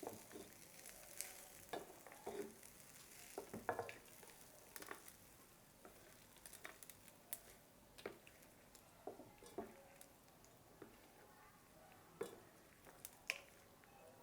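Rice rava pulihora being stirred and mixed in a vessel just after the hot tempering went in: soft scrapes and knocks at irregular moments, over a faint sizzle that fades in the first couple of seconds.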